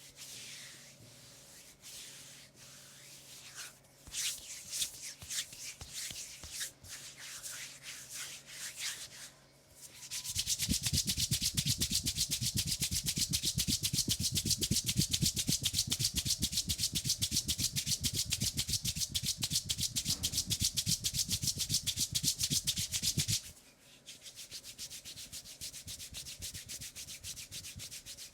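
Hands rubbing over skin in a leg massage: irregular strokes at first, then about ten seconds in a loud, fast, steady back-and-forth rubbing with many strokes a second, which drops to a quieter fast rubbing for the last few seconds.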